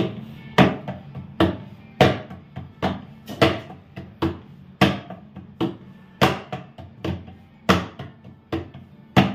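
Hands patting a disc of flatbread dough flat on a wooden board: a steady run of soft slaps, about two a second.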